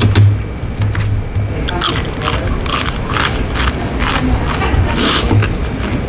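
Close-up eating of crunchy deep-fried food: a run of crisp crunches and crackles as it is bitten and chewed.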